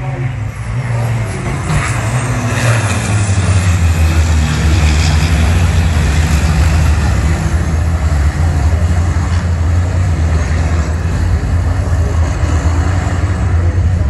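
Race trucks' turbocharged diesel engines running hard at close range: a loud, deep drone that builds over the first couple of seconds and then holds steady.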